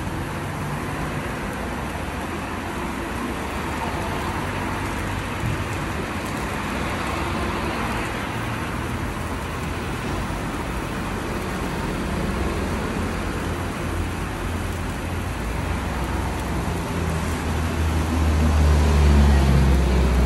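Handheld sparkler-type firework burning with a steady fizzing hiss, over a low traffic-like rumble that grows louder near the end.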